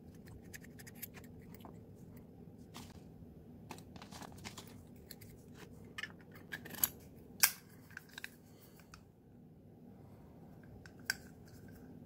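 Metal Zippo lighter being handled: light clicks and scraping as the chrome insert and the matte green case are worked together, with two sharp metallic clicks about seven seconds in and another near the end.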